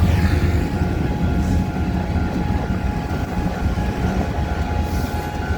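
Train passing a level crossing, with a steady low drone.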